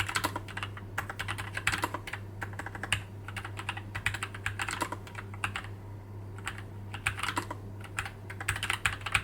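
Fast typing on a low-profile mechanical keyboard with Gateron Low Profile 2.0 Red linear switches: a dense, irregular patter of light key clacks in quick runs, over a faint steady low hum.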